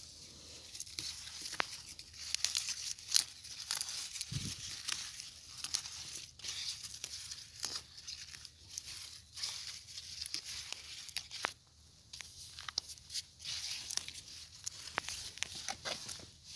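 Chrysanthemum leaves and stems rustling and crackling as hands work among the plants: an uneven run of small crackles, snaps and rustles.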